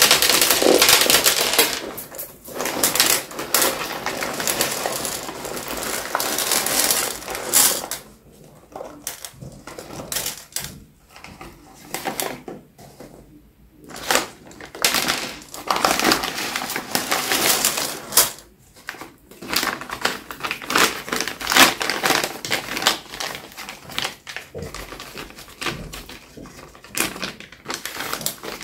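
No. 1 lead birdshot pouring from a bag into a metal tin: a dense rattling rush of pellets for about the first eight seconds, then shorter spurts and trickles as the bag is tipped further.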